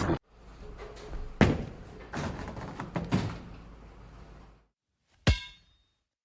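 Four dull knocks over a low hum, then one sharp metallic clang about five seconds in that rings briefly.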